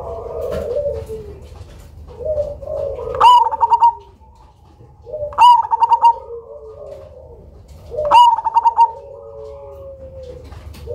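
Black cemani zebra dove (perkutut) singing: three loud song phrases a couple of seconds apart, each a sharp opening note followed by a quick rolling run of coos, with softer, lower cooing in between.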